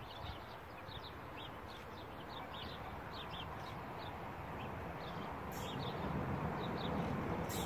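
Small birds chirping repeatedly over a low rumble that grows steadily louder as an approaching electric locomotive with freight wagons draws near, with a couple of brief hissy clicks near the end.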